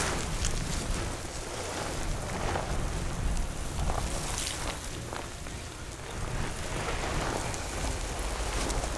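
Wind rumbling on the microphone, with rustling and crunching as someone crawls over dry, stony ground in stiff clothing.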